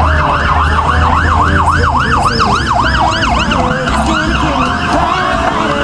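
Emergency vehicle siren in a fast yelp, its pitch sweeping up and down about four times a second over a low engine rumble. It weakens about four seconds in.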